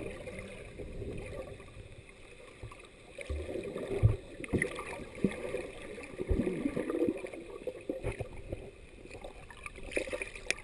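Muffled underwater sound of moving water around a submerged action camera, with gurgling and a few low knocks about four and six and a half seconds in.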